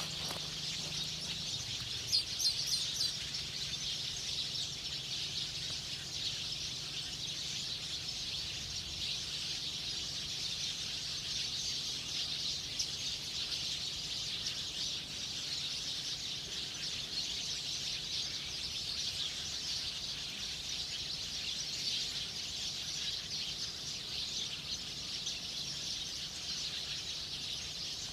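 Wild birds chirping in a dense, continuous high-pitched chorus, with a few brief sharp clicks about two seconds in.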